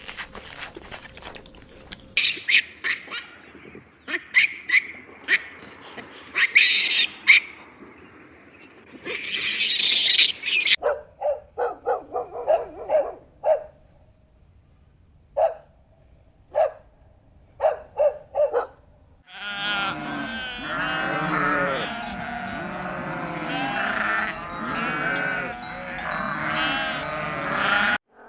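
Farm-animal sounds in three parts. First come sharp clicks and short high calls, then a few short single calls. From about 19 seconds in, a herd of many animals bleats all at once.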